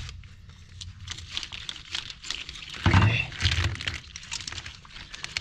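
Small clicks and scraping of a screwdriver prying at a plastic wiring-harness connector to open it, with a louder knock and rattle about three seconds in.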